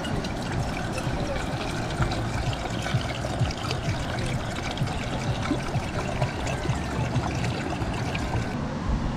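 Water poured in a thin stream from a height into an aluminium pot, splashing and trickling steadily as the pot fills. The pouring stops shortly before the end.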